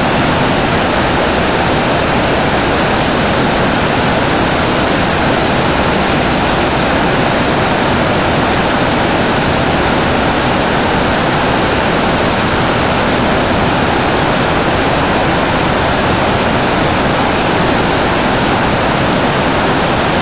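Many rapier looms running at once, their rapid weaving beats merging into a loud, steady din.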